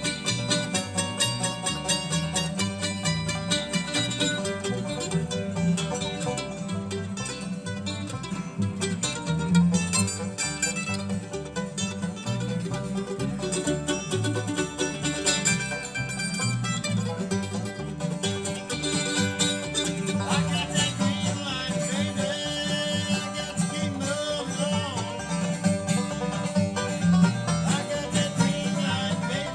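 Acoustic bluegrass band playing a song live, with plucked strings throughout.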